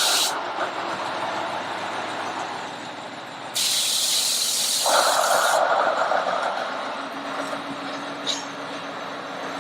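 Train on a preserved steam railway running along, heard from on board as a steady rumbling noise. About three and a half seconds in comes a sudden loud hiss lasting about two seconds, then a lower rushing sound for another two seconds or so.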